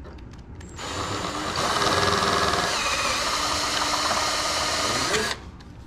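Ryobi cordless drill running steadily as it drills out the nose-gear mount of a foam RC plane, widening the hole for a thicker landing-gear shaft. It starts about a second in, gets louder shortly after, and stops abruptly near the end.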